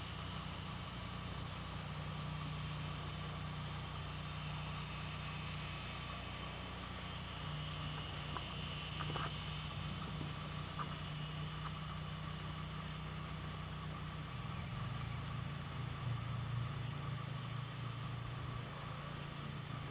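Low, steady hum of a nearby vehicle engine idling, its pitch dropping a little about fourteen seconds in.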